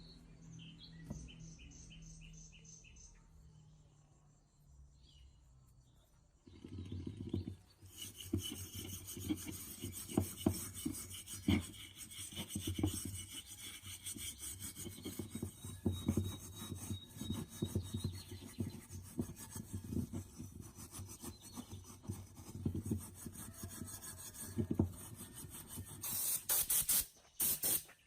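Irregular rubbing and scraping strokes, starting about six seconds in, from rust being worked off an old electric fan's parts by hand with an abrasive. A few short hissing bursts near the end.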